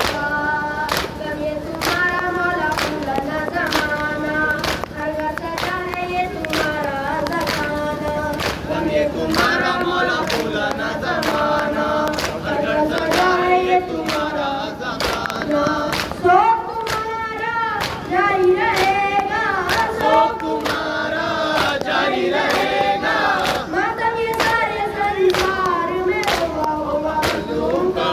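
Nauha, a Muharram lament, chanted by a boy's and men's voices with a crowd joining in. Mourners beat their chests in unison (matam), keeping a steady beat of about one stroke a second under the singing.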